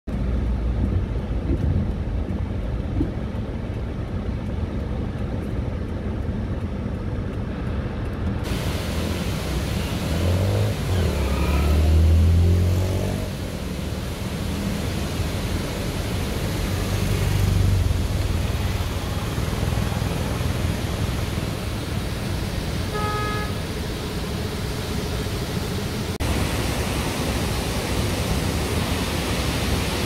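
Steady rushing noise of heavy monsoon rain and a flooded roadside waterfall, muffled at first as heard from inside a vehicle, then open and full after a cut. A vehicle rumbles past about ten to thirteen seconds in, and a vehicle horn sounds on one steady note for a few seconds about two-thirds of the way through.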